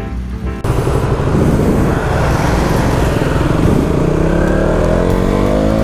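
KTM Duke 200's single-cylinder engine under way, heard through heavy wind rush on a chin-mounted helmet camera; over the last couple of seconds the engine note climbs steadily as the bike accelerates. A short stretch of music cuts off less than a second in.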